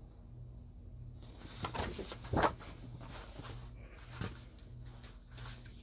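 Pages of a large hardcover picture book being handled and turned: a short paper rustle about two seconds in, then a lighter tap about four seconds in.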